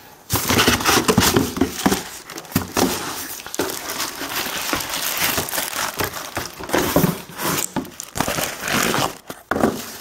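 Plastic packaging crinkling and rustling as hands dig through a cardboard box and pull parts out of their wrapping, with irregular louder crackles.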